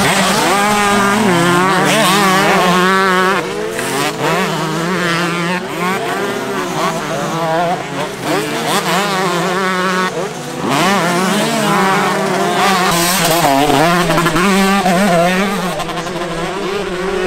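Motocross dirt bike engines revving hard on the throttle, their pitch swinging up and down with each burst of throttle, shift and let-off, as different bikes ride the track.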